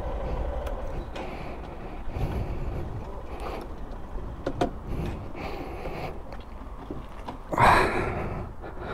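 Honda learner motorcycle running at low speed, its engine a low steady rumble, with a few sharp clicks and a loud burst of noise about three-quarters of the way through.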